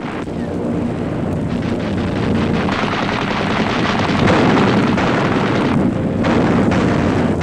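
Anti-aircraft guns firing in a dense barrage: rapid shots and booms run together into a continuous rumble that grows louder over the first few seconds.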